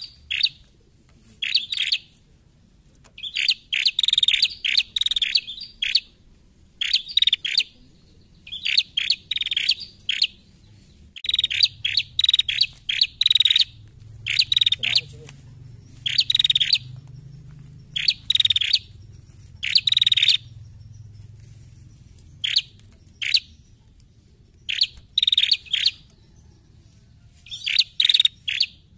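Female prenjak calling: clusters of short, sharp, high chipping notes in quick succession, each cluster lasting about a second and repeated after short pauses.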